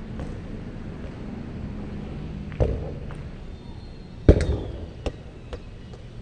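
A football's impacts: a sharp thud, then about two seconds later a louder bang with a short ring as the ball strikes something hard, followed by two lighter bounces.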